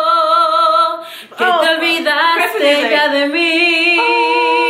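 A woman singing a Spanish-language song unaccompanied, holding long notes with vibrato. There is a short break for breath about a second in, then a new phrase that ends on another held note.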